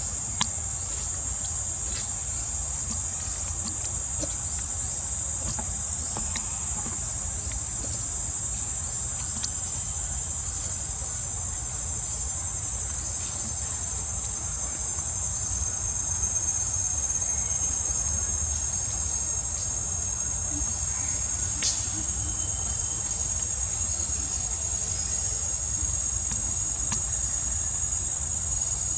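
Steady, high-pitched drone of an insect chorus, with a low rumble beneath and a few faint clicks.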